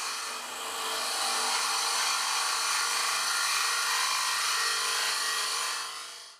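Titanium-nitride-coated mushroom cutter on a Robert Sorby Turnmaster hollowing the inside of a small wooden bowl on a spinning wood lathe: a steady scraping cut over the lathe's faint low hum. It dies down just before the end and cuts off abruptly.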